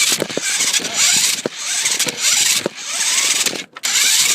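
Small RC car driving over rough ground: its motor and tyres give a steady rushing noise, broken by frequent knocks and rattles from bumps, with a brief gap about three and a half seconds in.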